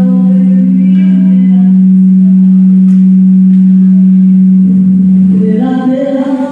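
A loud, steady low tone from the microphone's PA system, one flat pitch with little above it, drowns out a boy singing into the microphone. The tone cuts off about five seconds in, and the singing then comes through clearly.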